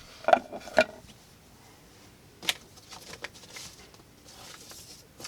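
Handling noise of hard objects on a work surface: a few sharp clicks and knocks, two close together near the start and another about two and a half seconds in, then a faint rustle.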